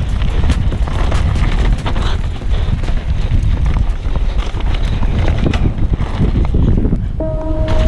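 Downhill mountain bike running fast over a dirt and gravel trail: wind buffets the helmet-camera microphone while the tyres crunch and the chain and frame rattle and knock over the bumps. Music comes in with a held tone near the end.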